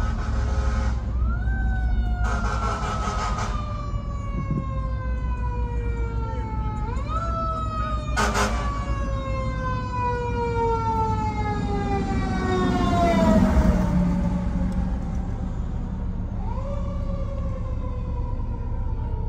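Fire truck siren wailing, each wail winding up quickly and then falling slowly in pitch, three times over a steady low road rumble from the following car. Two short bursts of noise cut in, one a couple of seconds in and another about eight seconds in.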